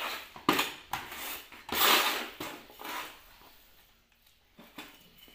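Small hand trowel scooping and scraping chunky cutting media in a plastic pot: several rough scraping, rustling strokes, the loudest and longest about two seconds in, then quieter handling.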